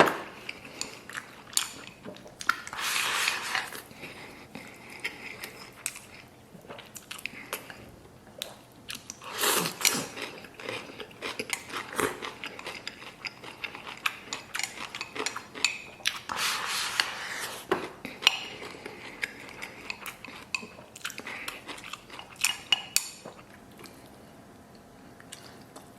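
Close-miked eating of soy-braised beef ribs: wet chewing and biting of tender meat, with many small clicks and three louder passages of tearing and sucking at the meat. Occasional light clinks of dishes.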